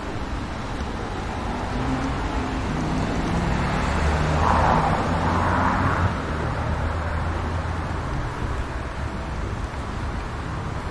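Street traffic noise with a motor vehicle passing close by, its engine and tyre noise swelling to a peak about halfway through and then fading.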